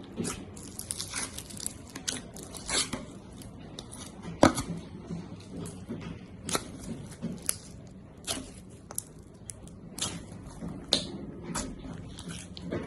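Slime being squeezed and pressed by hand, giving irregular sharp pops and crackles, the loudest about four and a half seconds in.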